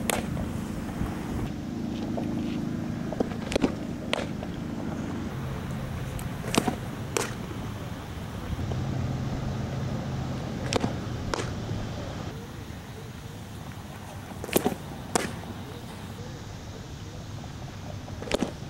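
Softball pitching: five times, a pair of sharp smacks about half a second apart as a pitch is delivered and pops into the catcher's leather mitt, over a steady low hum.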